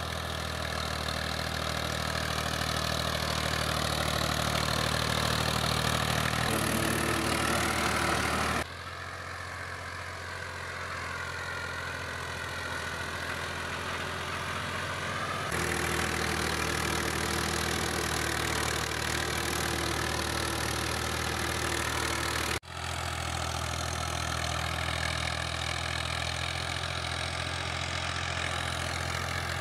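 Ghazi tractor's three-cylinder diesel engine running steadily under load while it drives a rotavator through ploughed soil. The level and tone change abruptly three times.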